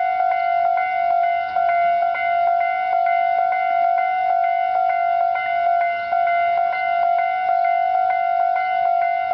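Japanese railway level-crossing alarm ringing: a ringing electronic clang struck over and over, about two strikes a second, over a steady tone. The alarm sounds while the crossing is active for an approaching train.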